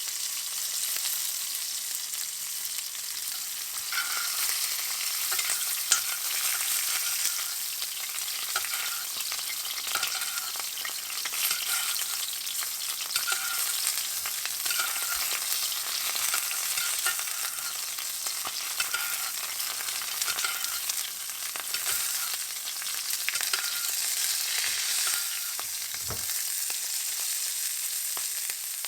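Steak searing in a hot pan: a steady sizzle of crackling fat with scattered pops and spits, a faint repeating chirp running through the middle, and a short low knock near the end.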